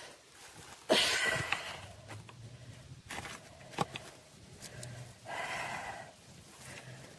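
Rustling and handling noise as a bunch of roses is laid down by hand, loudest in a short rustle about a second in, with a few light clicks and a softer rustle later.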